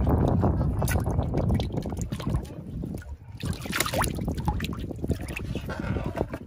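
Water splashing and dripping in a plastic tub as fish are lifted and moved about in it, with wind buffeting the microphone, heaviest in the first couple of seconds.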